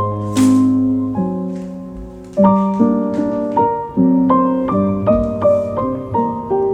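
Background piano music: a gentle melody of single notes and chords, each struck and left to fade, at about two or three notes a second.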